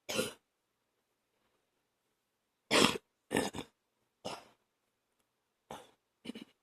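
A woman coughing with phlegm on her chest: one short cough, then after a pause of about two seconds a run of five short coughs.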